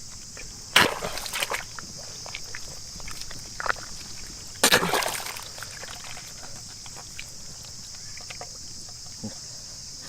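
Water splashing as hands and feet work in a flooded field: two loud splashes, about a second in and again near the middle, with smaller sloshes between. A steady high-pitched insect chorus runs under it.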